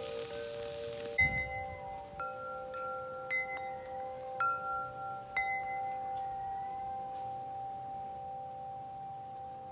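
Chime-like background music: struck bell tones ringing out over a steady held note. For about the first second a grill sizzle hisses under it, then cuts off suddenly.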